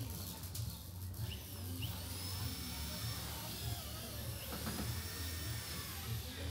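Outdoor town street ambience: a steady low rumble under a general hiss, with a few faint high chirps.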